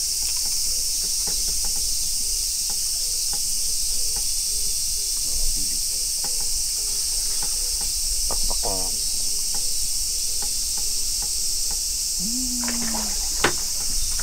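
A steady, high-pitched chorus of summer cicadas, with faint scattered ticks and one sharp click near the end.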